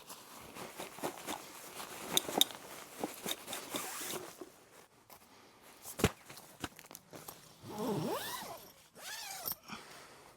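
Camping gear being handled: rustling and small clicks, a single sharp knock about six seconds in, and a few creaks near the end.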